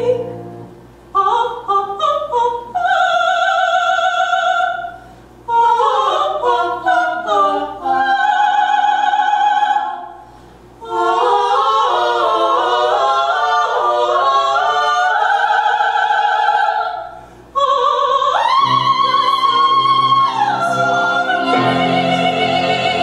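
Three female voices singing musical-theatre melody in harmony, phrase by phrase with short breaths between, moving into long held notes near the end.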